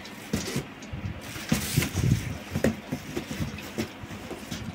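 Handling noise: irregular soft knocks and rustles as a black PC cabinet is handled and shifted on a cloth mat.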